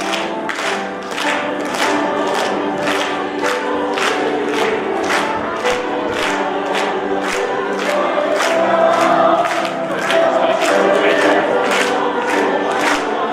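Group of voices singing a song over a steady sharp beat of about three strokes a second.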